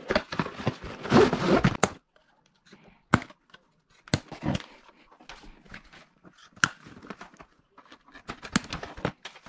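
Cardboard and plastic packaging of a toy blaster box being opened, with rustling, tearing and crinkling for about two seconds. Then scattered rustles and several sharp snips as scissors cut the ties holding the blasters in the box tray.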